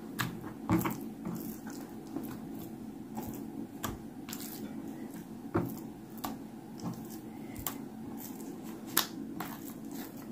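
Pieces of raw, oiled and seasoned beef being handled and packed into an enamel pot: soft wet squishing with scattered light clicks and taps, over a low steady hum.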